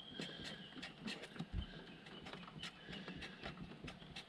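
A pen writing on a small wooden ema plaque: faint, irregular small taps and scratches, with a thin high squeak from the pen tip.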